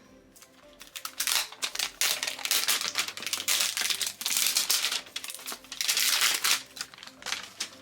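Plastic toy packaging crinkling as it is unwrapped by hand, in irregular rustling bursts that begin about a second in.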